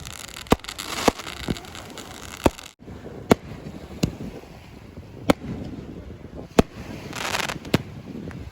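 Fireworks going off: about nine sharp bangs at irregular intervals, with a short hissing burst near the end.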